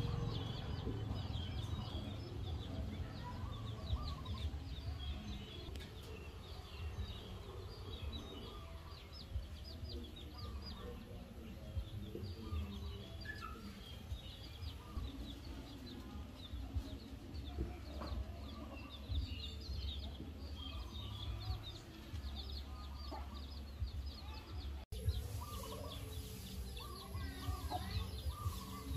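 Farmyard ambience: chickens clucking, with many small birds chirping throughout and a steady low rumble underneath.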